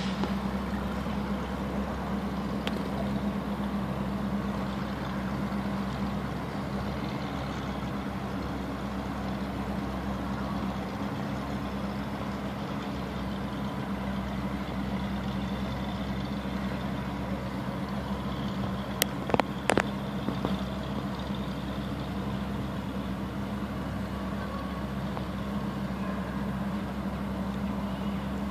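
Steady low mechanical hum, such as running machinery or an idling engine, unchanging throughout, with two or three sharp clicks about two-thirds of the way through.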